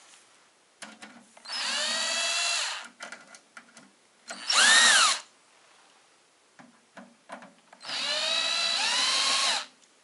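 Cordless drill/driver running in three bursts to back out the screws holding a desktop computer's side cover, with light clicks of handling between. The first whine lasts about a second and a half, the short middle one spins up and winds down, and the last and longest steps up in pitch near its end.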